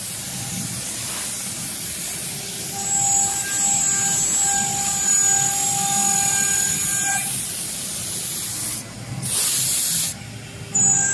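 Twin-spindle CNC router cutting a wooden board: the spindles give a steady high whine over the hiss of the cut. Near the end the whine drops out briefly and a short burst of hissing is heard.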